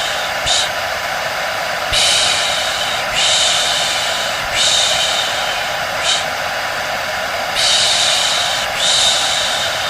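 Steady hair dryer noise with a person's 'shh' shushing repeated over it, mostly long shushes of about a second each, a few shorter ones between, used as a looping white-noise lullaby to settle a baby.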